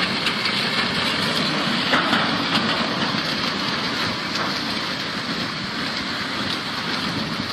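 Fast-flowing floodwater rushing steadily, with faint knocks mixed in.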